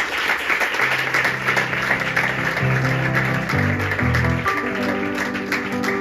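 Audience applause: dense, steady clapping from a room full of people. Background music comes in about a second in and plays under it.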